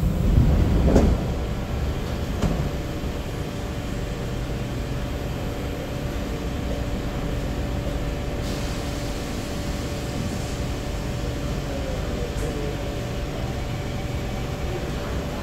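SMRT C751B metro train's passenger doors finishing their opening with a couple of thuds in the first second or so and a lighter knock at about two and a half seconds. Then the standing train's steady hum of ventilation and onboard equipment, with a faint steady tone.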